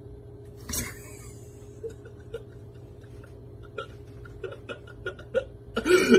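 A steady low hum, a short noisy burst about a second in, then a string of short vocal sounds from a person that grow louder near the end.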